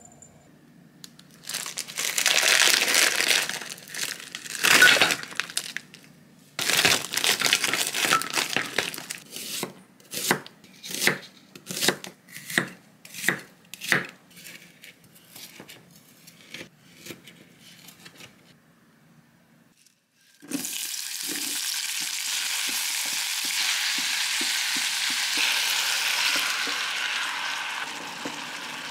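A kitchen knife slicing onion on a wooden chopping board: dense scraping and cutting, then separate chops about two a second that fade away. After a short pause, a steady sizzle of ingredients cooking in a pot.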